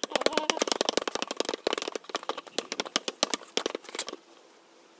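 Basketball dribbled low and fast on a hard court surface, a quick run of slaps of ball on ground and hand that stops after about four seconds.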